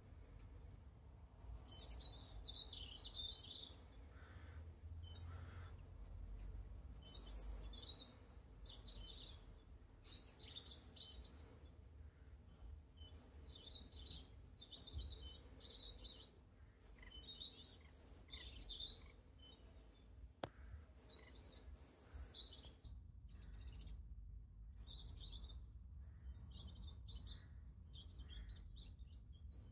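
Songbirds singing: short, high chirping phrases that come one after another with brief gaps, over a faint low rumble.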